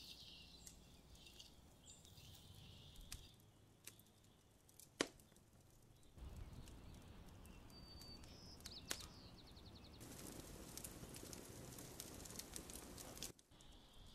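Near silence: faint outdoor ambience with scattered high bird chirps, a few soft clicks and one sharp click about five seconds in, and a steady faint hiss in the last few seconds.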